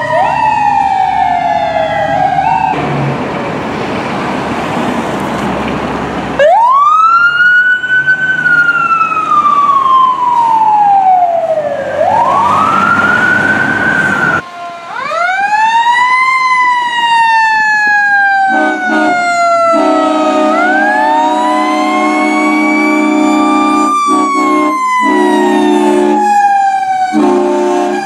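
Fire apparatus sirens wailing, the pitch sweeping slowly up and down, with the sound cutting abruptly from one truck's siren to another's. Early on there are a few seconds of rushing noise, and in the second half a steady lower horn tone sounds under the wail, broken by short gaps.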